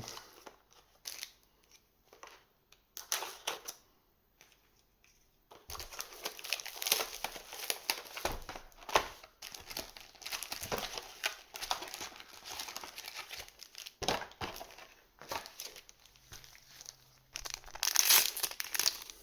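Plastic packaging crinkling and tearing as a trading-card booster box and its foil packs are opened: a few scattered crinkles, a short lull, then dense continuous crinkling from about six seconds in, loudest near the end.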